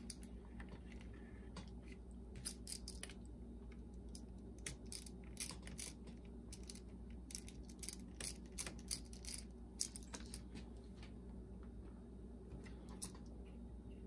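Faint, irregular small clicks and ticks of a screwdriver working screws out of a boombox's circuit board, with the screws and small parts being handled, over a low steady hum.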